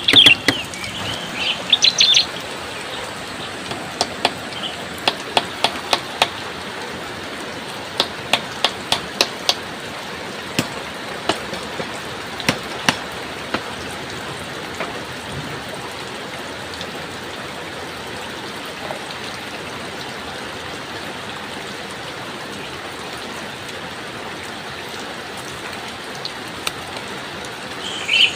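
Steady rain hiss, with bird chirps near the start and the end. Through the first half come sharp knocks or taps in short groups of three to five.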